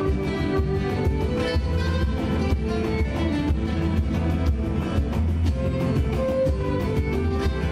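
Live instrumental regional gaúcho music: violin melody over several acoustic guitars, with a steady beat from a cajón.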